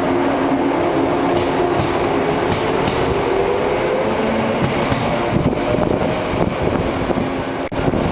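Shinano Railway 115 series electric train accelerating out of the station past the platform: the traction motors whine, one tone rising slowly in pitch, while the wheels clack over the rail joints. The whine fades in the last couple of seconds as the end of the train goes by, leaving an irregular wheel clatter.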